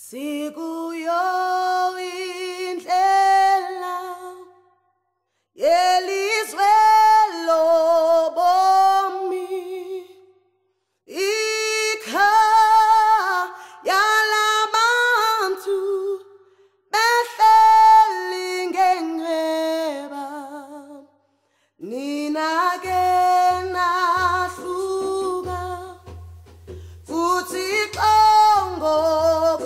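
A woman singing unaccompanied: phrases of held, wavering notes about four to five seconds long, each followed by a short pause. After about twenty-three seconds a low, pulsing bass tone comes in beneath the voice.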